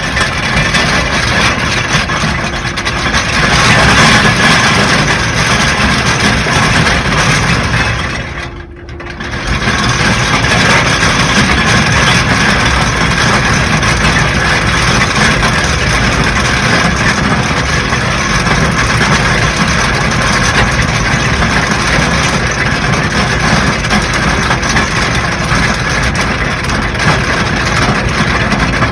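Cruise boat under way: steady, loud engine and rushing noise, briefly dropping about nine seconds in.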